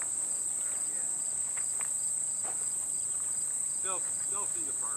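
Steady high-pitched chorus of insects droning without a break, with a fainter chirp repeating about twice a second beneath it.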